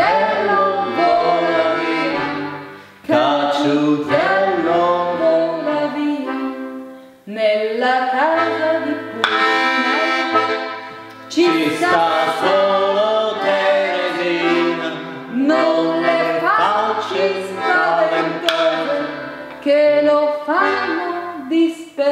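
A man sings a folk song in phrases of about four seconds, accompanying himself on a small button accordion whose chords and bass notes run underneath.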